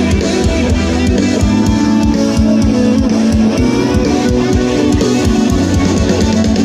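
Band music with electric guitar and a drum kit playing a steady, driving beat.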